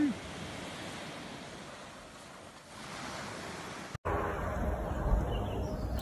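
Surf washing onto a beach: a steady wash of breaking waves that swells about three seconds in. About four seconds in it cuts abruptly to a louder, low rumbling noise.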